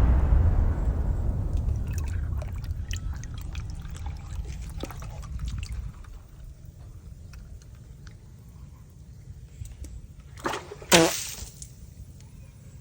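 Water from a burst water balloon splashing, trickling and dripping. The rush dies away over the first few seconds, leaving scattered drips. Near the end come two short sharp sounds, the second with a brief squeak-like pitch.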